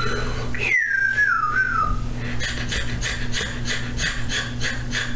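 Someone whistling a high, wavering whine that slides up and down and stops about two seconds in. After it come quick breathy puffs, about three or four a second, over a steady low electrical hum.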